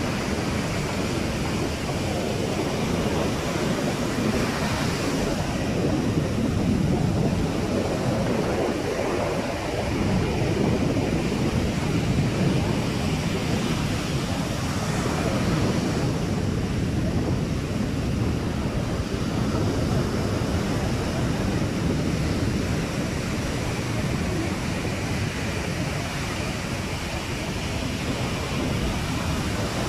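Ocean surf washing onto a sandy beach, with wind buffeting the microphone; the hiss of the breaking waves swells about every ten seconds.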